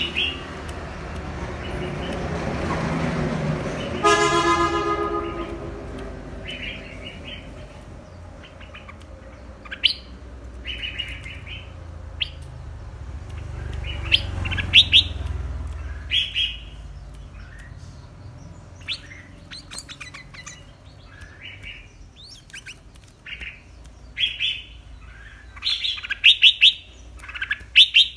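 Red-whiskered bulbul singing in its cage: short chirping phrases again and again, coming thicker and louder near the end. Near the start a rushing noise builds, and a horn sounds briefly about four seconds in.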